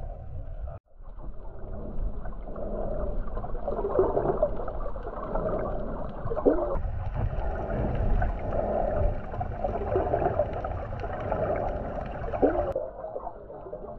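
Muffled underwater sound of water sloshing and gurgling, rising and falling every second or two. It cuts out briefly about a second in, and its tone changes abruptly twice where the clips change.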